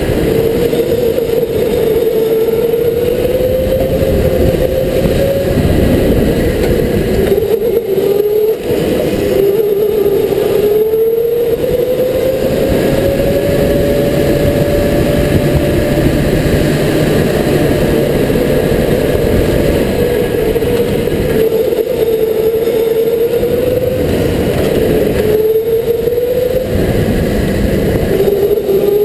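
Electric go-kart's motor whining, its pitch rising on the straights and dropping into the corners as the kart speeds up and slows down, over a steady rush of tyre and wind noise.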